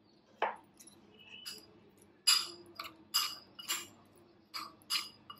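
Metal spoon stirring a corn salad in a glass bowl, with a string of irregular clinks and scrapes against the glass, about two a second in the second half.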